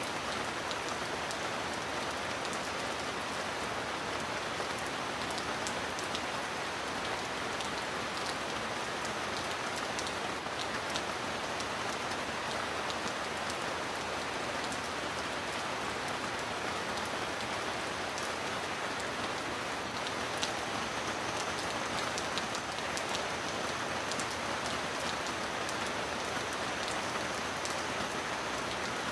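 Heavy rain falling steadily: an even hiss with scattered sharp drop ticks.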